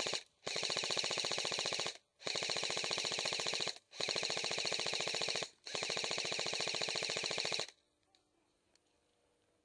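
Airsoft gun firing on full auto in long bursts of rapid, evenly spaced shots: the tail of one burst, then four more bursts of about one and a half to two seconds each with short pauses between, stopping near the end.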